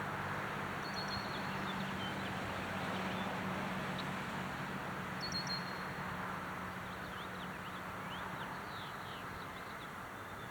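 Small birds chirping, with short high notes and quick falling sweeps, over steady outdoor background noise and a low hum that fades in the second half.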